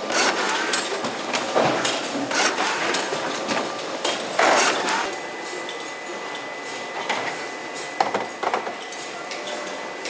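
Packing-line machinery clattering: dense knocks and clicks of cartons and containers moving on conveyors, loudest in the first half. From about halfway it settles into a steadier run with a thin steady tone and a few more clicks.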